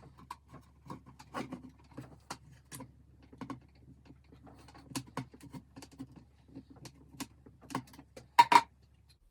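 Irregular small clicks and taps of plastic model-kit frame parts being handled and screwed together, with two louder knocks close together near the end.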